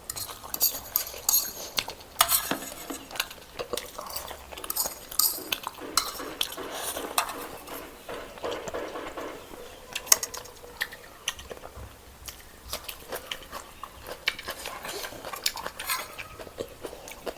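Cutlery clinking and scraping against a dish during eating, in many short, irregular clicks.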